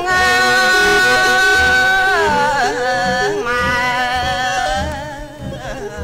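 Khmer yike theatre singing: a long, held vocal note that wavers and bends about two seconds in, then continues into a new phrase. Accompanied by a bowed Khmer two-string fiddle and slow, even beats on large yike frame drums.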